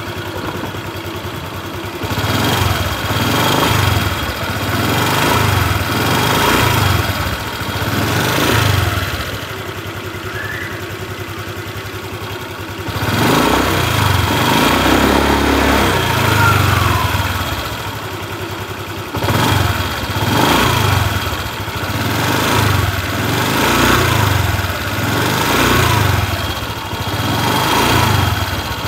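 Honda Vario 150 scooter's liquid-cooled single-cylinder engine idling, with the throttle blipped again and again and one longer rev in the middle. The main engine sounds slightly rough: a grinding 'ngerr' as the throttle opens, with faint small ticking, which the mechanic notes as typical of the 2021-on model.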